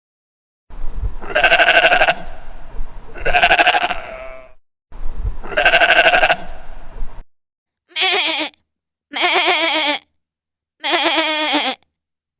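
Livestock bleating: three long, loud bleats with a low rumble under them. After a short break come three shorter, higher, quavering bleats.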